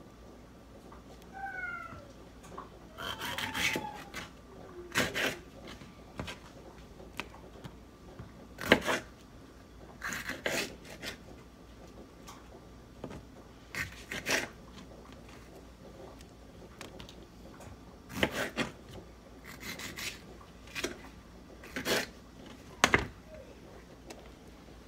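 Kitchen knife slicing vegetables on a cutting board: separate cutting strokes and knocks of the blade against the board, a dozen or so at irregular intervals.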